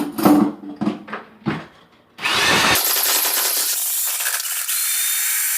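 A few knocks and handling noises, then about two seconds in an electric drill starts, spinning a stirring paddle in the wine must in the pail with a loud, steady whirr that runs for about four seconds.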